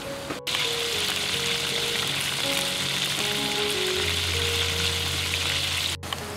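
Hot oil sizzling hard in a wok of deep-frying food, a dense steady hiss that cuts in about half a second in and stops abruptly near the end.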